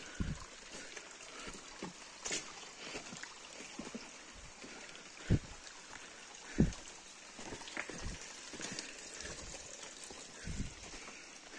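Footsteps on the wet stones and mud of a creek bed, a few irregular thuds, the two loudest about five and six and a half seconds in, over a faint trickle of water.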